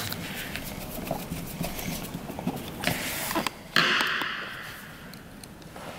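Small clicks and taps of a hand screwdriver and screws against a plastic e-bike battery housing as the LED panel's screws are driven back in. A brief rustle about four seconds in fades away.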